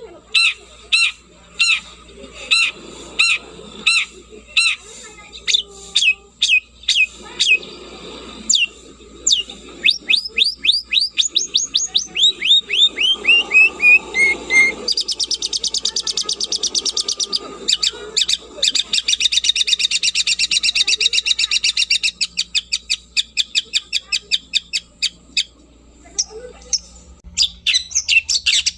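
Long-tailed shrike (cendet) singing vigorously: sharp downward-sweeping notes repeated about twice a second, speeding into a run of falling notes, then a long fast chattering trill in the middle, with spaced notes returning near the end.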